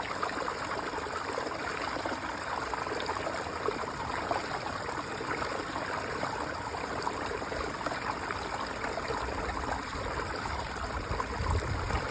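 Water running steadily out of a pond, a constant rushing trickle. A low rumble joins it near the end.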